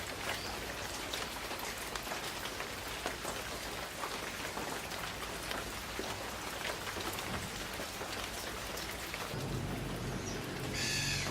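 Steady rain falling, with individual drops striking close by. A low rumble of distant thunder comes in about two seconds before the end, and a short, harsh bird call sounds right at the end.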